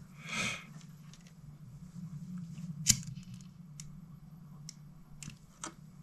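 Hands handling a disposable lighter and fishing line: a short scratchy rush near the start, a sharp click about three seconds in, and several faint ticks, over a steady low hum.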